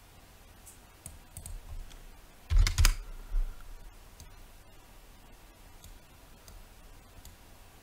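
Computer keyboard and mouse clicks: scattered single clicks, with a cluster of louder knocks with a dull thud about two and a half seconds in and another a moment later, then a few faint clicks.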